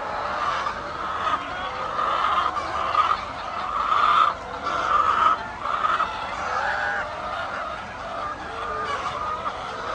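A flock of poultry calling continuously, many birds overlapping, with louder calls in the middle of the stretch.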